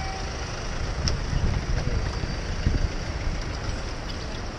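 Riding a bicycle on a wet city road: a steady hiss of tyres on the wet surface and traffic, under an uneven wind rumble on the bike-mounted camera's microphone that swells for a couple of seconds. A sharp click comes about a second in.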